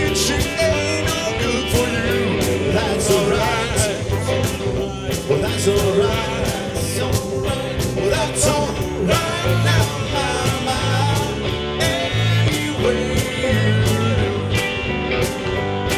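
Live rock-and-roll band playing amplified: electric guitars, electric bass and a drum kit, with cymbals struck on a steady beat.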